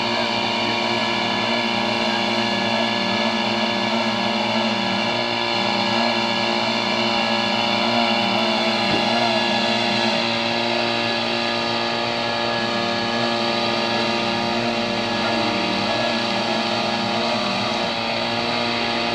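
Engine of a portable fire pump running steadily at a constant speed, pumping water from a pond into a fire hose.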